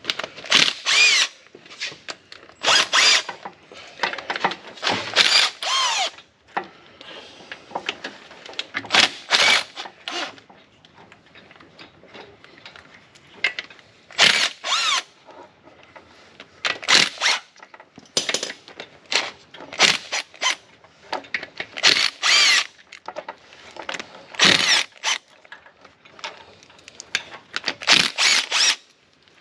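Cordless impact wrench whirring in about a dozen short bursts, spinning already-loosened nuts off the studs of a 1932 Ford Model B engine.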